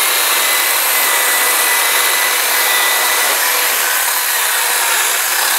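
Two small cordless one-hand chainsaws, a Stihl GTA 26 and a Batavia 18 V Nexxsaw, running together and cutting through 6×6 square timber: a steady motor whine with the rasp of the chains in the wood.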